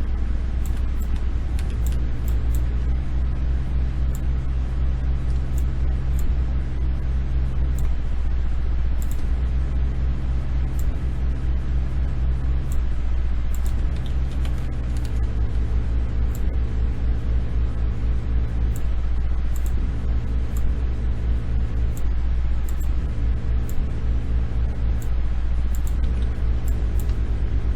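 Steady low hum with faint, irregular computer-mouse clicks scattered over it.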